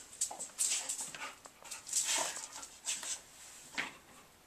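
An excited pit bull-type dog panting and whimpering in short, irregular breaths and whines.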